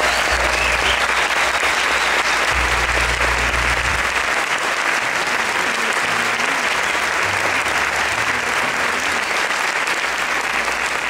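Audience applauding steadily, a long round of applause in a concert hall.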